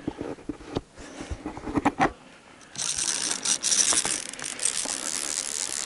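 Fishing reel's drag clicking, then buzzing continuously from about three seconds in as a hooked lake sturgeon strips line off on a run. The buzz follows a few knocks and clicks from handling the rod.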